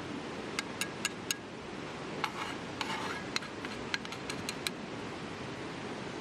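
A quick, irregular run of light clinks and taps from small hard objects, some with a short ring, over the steady rush of a river.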